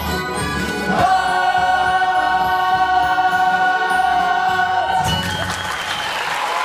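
Full cast of a youth musical singing the final held chord of a show tune with accompaniment, one long note held for about four seconds before it cuts off. Audience applause starts about five seconds in.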